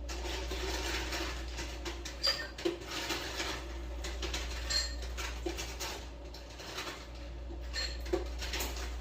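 Ice cubes clinking and clattering as they are scooped from a countertop ice maker's basket into a cup, with several sharp clinks among a rustling clatter.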